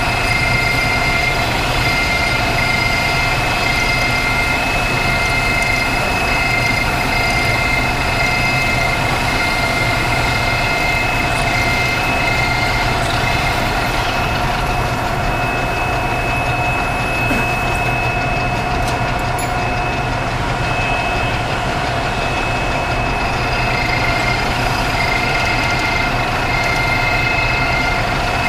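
Metal lathe running steadily, turning a bevel on the end of a pipe, with a constant mechanical whine of several tones over a rumble. One high tone pulses for much of the time and fades out for a stretch in the middle.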